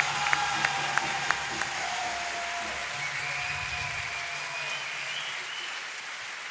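Audience applauding, with individual sharp claps standing out at first, then gradually fading away towards the end.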